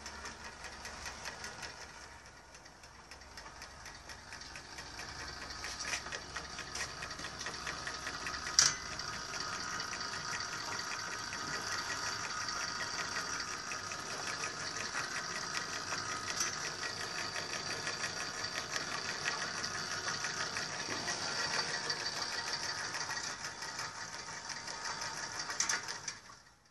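Homemade kayak pedal drive built from recycled parts being run: the right-angle gearbox and long drive shaft make a fast, steady mechanical clatter. The clatter builds over the first few seconds, is cut by one sharp knock about eight seconds in, and stops just before the end.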